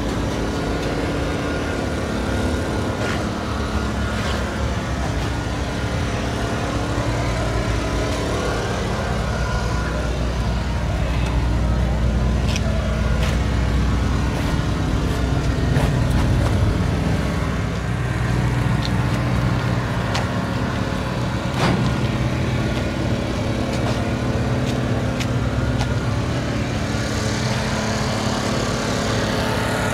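Motor vehicle engines running nearby: a steady low rumble with a droning hum that grows louder about halfway through, with a few faint clicks.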